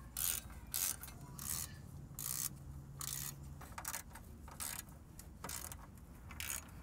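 Socket ratchet clicking in short runs, roughly one burst a second, as a 14 mm bolt is tightened.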